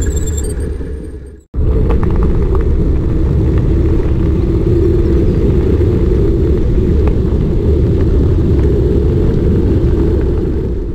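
Steady low rumble of wind and tyre noise picked up by a bicycle-mounted camera while riding. It fades out about a second and a half in, cuts straight back in, and fades again near the end.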